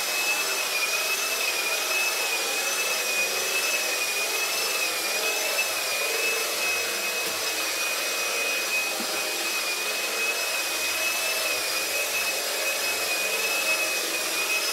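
Old Phonola electric floor polisher running steadily, its hard-bristle brushes spinning over a waxed marble floor to spread the wax. The motor gives a high whine that wavers slightly in pitch over an even rushing noise.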